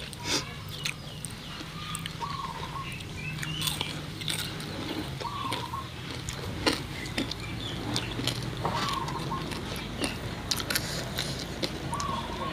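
Close-up eating sounds: people biting and chewing fish-sauce fried pork and sticky rice, with many sharp crunchy clicks. Faint short chirps come a few times in the background.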